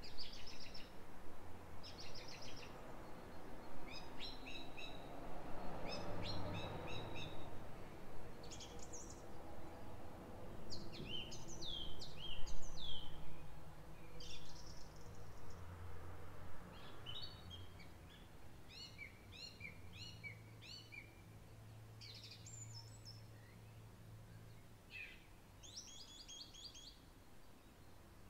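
Garden songbirds singing: short, repeated phrases of high chirps and trills coming one after another. Under them runs a low, steady background rumble that swells twice, about a third and again about half of the way in.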